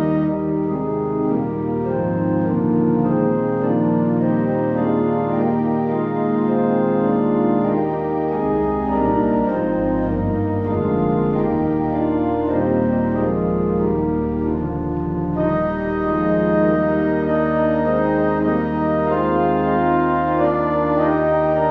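Organ playing the closing postlude of a church service: sustained chords over long held bass notes, the sound growing brighter about three-quarters of the way through.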